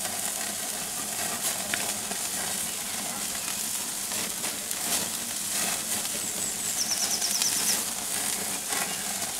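Burgers and sausages sizzling on a charcoal kettle barbecue, a steady hiss with fat crackling over the hot coals. A bird chirps a quick, high trill about seven seconds in.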